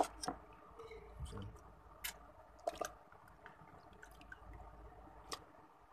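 Wet raw chicken drumsticks being set one by one into a dry non-stick pot: a few scattered soft wet slaps and taps, with a sharp click right at the start.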